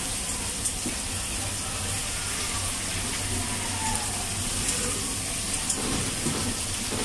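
Pork chops and sliced onions frying in oil in a pan, with a steady sizzle and a few light clicks of metal tongs as the pieces are moved.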